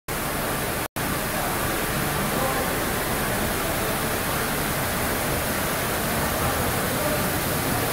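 Sieve-vibratory grain separator with aspirator running: a steady, even rushing noise from its vibration motor, shaking screens and air flow. The sound cuts out for a split second just before one second in.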